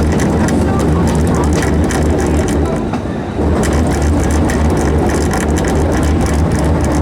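Steam train carriages rolling along the track: a steady low rumble with rapid rattling clicks, easing briefly about three seconds in.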